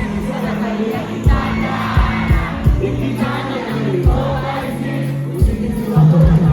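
Live band music at a concert: a singer with the crowd singing along over held bass notes and scattered drum hits.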